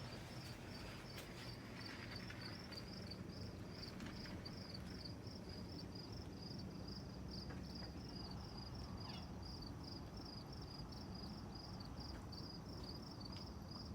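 A cricket chirping steadily, about four short high chirps a second, over a faint low steady hum.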